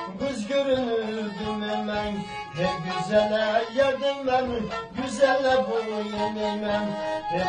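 Black Sea kemençe played with a bow: a quick, ornamented folk melody moving over a steadier, held lower line.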